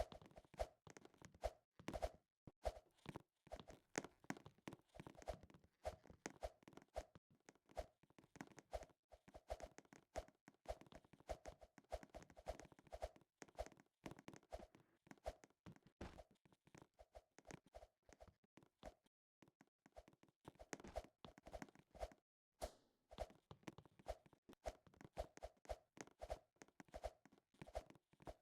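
Faint, irregular clicking and tapping, several small clicks a second, with short pauses about 2, 9, 13 and 22 seconds in.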